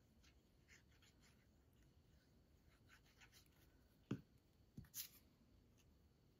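Faint handling of small cardstock flower cutouts: soft paper rustles and small clicks while glue is dabbed on and the layers are pressed together, with a couple of light knocks on the table about four and five seconds in.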